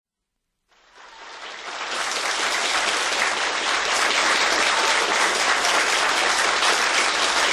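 Audience applauding, fading in about a second in and then holding steady.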